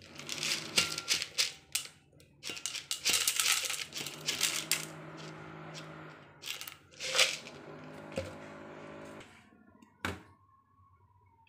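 Dried wolfberries (goji berries) poured from a plastic jar into a stainless steel bowl, clattering as the small hard pieces land: a dense rattle for about the first five seconds, then a few scattered ones. A low steady hum runs through the middle, and there is a single sharp click near the end.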